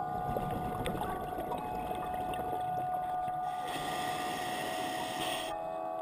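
Scuba breathing through a regulator, heard underwater. For about three and a half seconds an exhale rumbles out as bubbles. Then comes a hissing inhale of about two seconds, over a steady hum.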